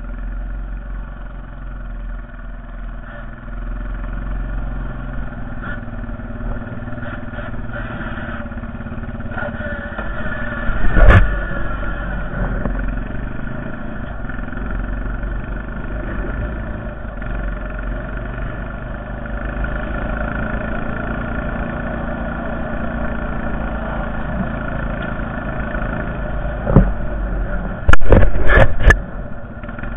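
Honda Foreman TRX450ES ATV's single-cylinder engine running steadily under load while plowing snow. A loud thump comes about eleven seconds in, and a quick cluster of loud knocks near the end.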